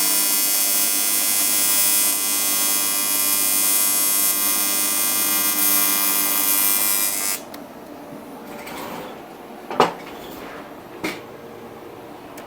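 AC TIG welding arc on an aluminum oil pan and steel-free -10 AN weld fitting, a steady electric buzz that cuts off about seven seconds in. A couple of light knocks follow.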